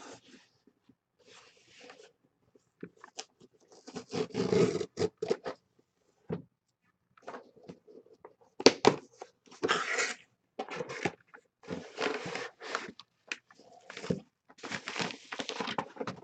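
Cardboard shipping box being opened and handled by hand: irregular bursts of scraping, rubbing and rustling of cardboard flaps and packing, with a padded mailer being pulled out near the end.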